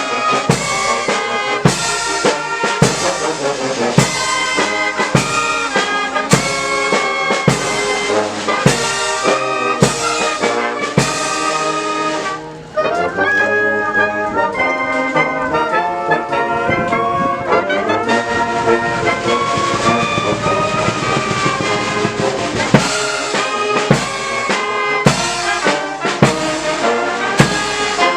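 Brass band playing with trumpets and trombones over a steady drum beat. Past the middle the drums drop out for several seconds while the horns carry on, then the beat returns.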